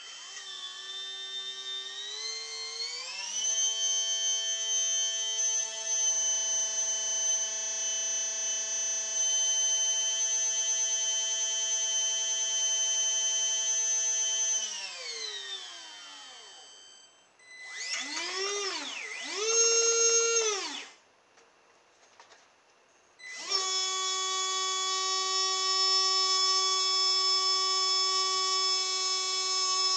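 Small 3–6 V DC water pump motor of a homemade model jet boat, run in reverse to blow out debris jamming the pump, giving a steady electric whine. It rises in pitch over the first few seconds and holds steady, then winds down about fifteen seconds in. Two short bursts rise and fall, and after a pause it runs steadily again until it cuts off abruptly at the end.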